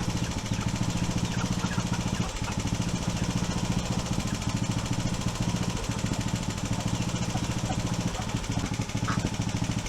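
An engine running at a steady speed, with an even, fast pulse.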